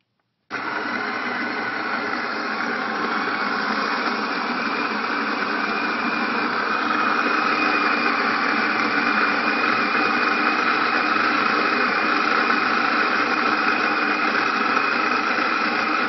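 Bodum Bistro electric burr grinder grinding coffee beans on its 15-second timer: the motor starts about half a second in, runs steadily, grows slightly louder partway through, and cuts off suddenly as the timer shuts it off by itself.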